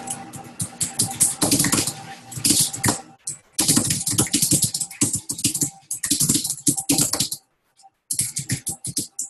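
Fast typing on a computer keyboard, keystrokes clattering in quick runs, with brief pauses about three seconds in and again near the end.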